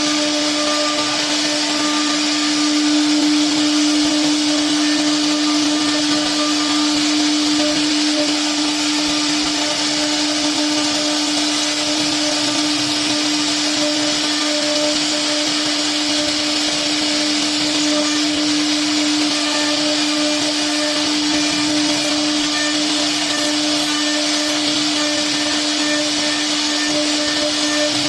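CNC router spindle running steadily: a constant pitched whine with a wide hiss over it.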